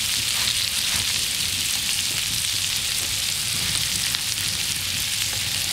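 Skin-on herring fillets sizzling in oil and butter in a hot frying pan: a steady, crackling hiss.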